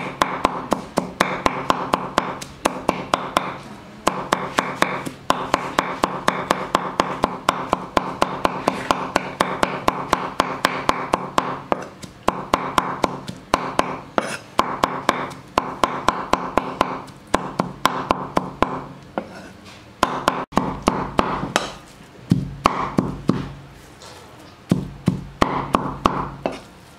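Steel cleaver chopping rapidly on a thick wooden chopping board, mincing pork and garlic with several chops a second, pausing briefly twice near the end.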